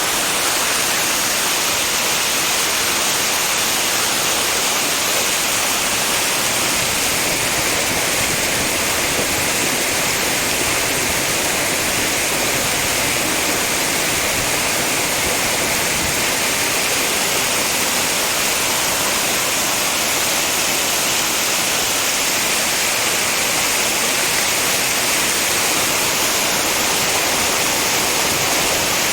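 Waterfall: a steady, unbroken rush of falling water, heavy in hiss.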